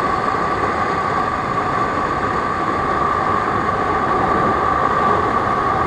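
Yamaha R15 V3 motorcycle riding at speed on a highway: steady rush of wind on the microphone over the engine's even drone, with one constant high hum through it.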